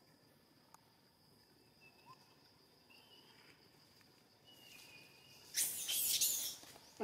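Insects trilling steadily at one high pitch, with a few faint short high calls in the middle. Near the end comes a loud, harsh burst of hissy noise lasting about a second.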